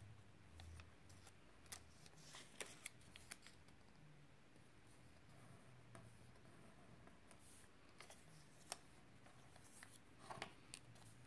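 Origami paper being handled and creased by hand: faint, scattered crackles and small taps, with a short cluster near the end.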